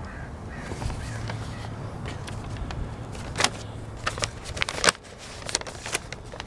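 Paper being handled, with irregular crackles and rustles that grow busier about halfway through, over a faint low hum.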